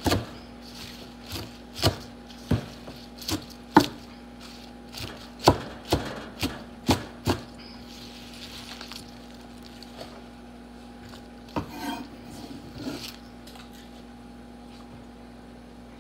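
Large kitchen knife chopping fresh spinach on a wooden cutting board: about a dozen sharp knocks, roughly two a second, over the first seven seconds, then a short pause and a few more chops around twelve seconds in.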